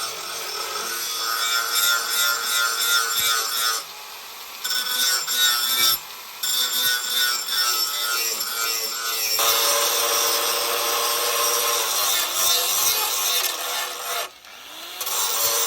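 Abrasive shaping of a steel cleaver blade: a continuous rasping scrape of metal with a faint ringing in it. It stops briefly about four, six and fourteen seconds in.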